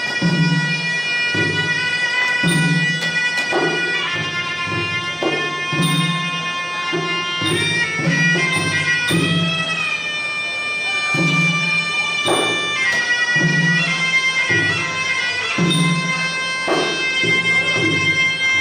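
Traditional Khmer boxing music: a reedy sralai oboe playing a long-held, sliding melody over regular low drum beats, the music that accompanies the fighters' pre-bout ritual and the fight.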